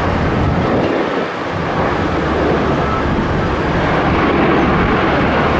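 Jet airliner engines, a loud, steady rushing noise with deep rumble that dips briefly about a second in.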